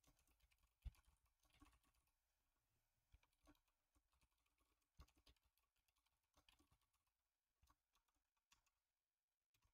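Faint computer keyboard typing: scattered, irregular keystrokes with short pauses between runs.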